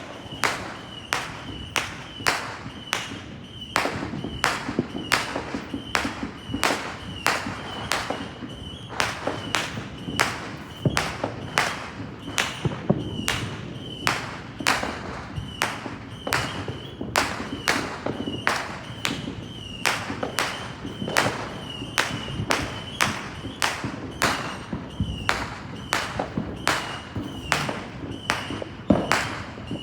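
Fireworks sound effect: a steady barrage of sharp bangs, about two a second and evenly spaced, each with a brief high ring after it.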